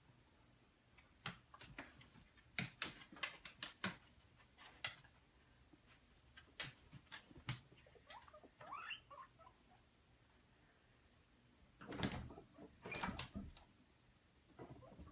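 Faint scattered taps and scuffles, with a short high squeak that rises and falls about halfway through and a denser flurry of knocks a few seconds before the end.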